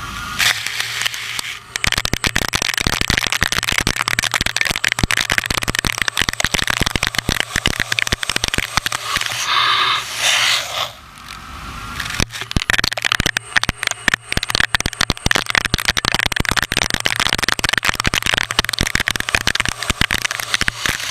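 A CNC lathe cutting stainless steel: a dense, rapid crackle and scrape of the tool in the metal and the chips breaking, over a low steady hum. About ten seconds in there is a brief higher squeal of about a second.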